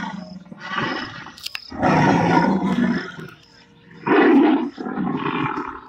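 Animatronic Tyrannosaurus rex model playing recorded dinosaur roars: a series of about four rough roars with short pauses between them, the loudest a little past four seconds in.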